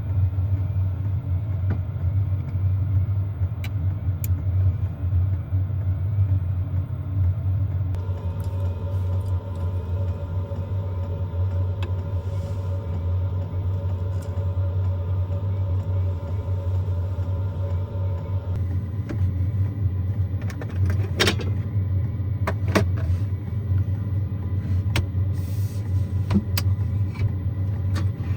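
Kei van running with a steady low rumble, with scattered clicks and knocks in the last third.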